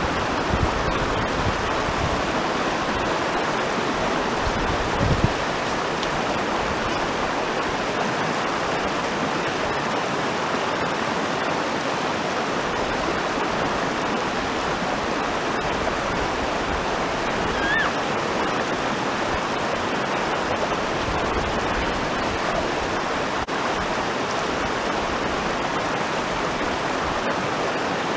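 River water running over rocks and through a shallow rapid, a steady rushing hiss, with a brief low thump about five seconds in.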